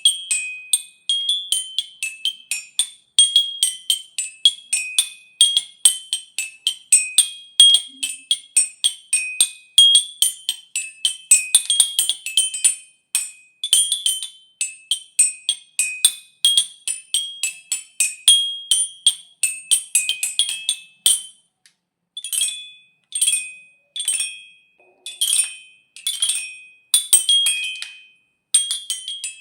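High-pitched xylophone struck with mallets in quick runs of notes that mostly bounce between two or three pitches. In the last third the notes come in shorter clustered flurries with brief pauses between them.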